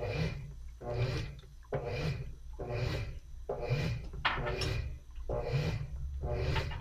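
Top-loading washing machine agitating a load, swishing back and forth in an even rhythm of about one stroke a second over a steady low motor hum.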